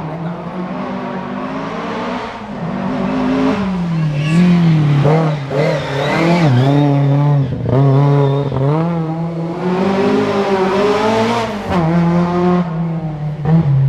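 Historic rally car engine revving hard on a special stage, its pitch climbing and falling again and again as the driver shifts gears and lifts off, loudest in the middle of the passage.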